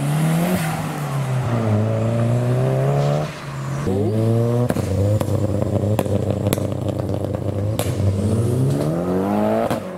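Two Nissan sports cars, an S13 180SX and then an S14 200SX, accelerating away one after the other, the revs rising and dropping through gear changes. The first fades about three seconds in and the second pulls away with a scatter of sharp cracks in its run.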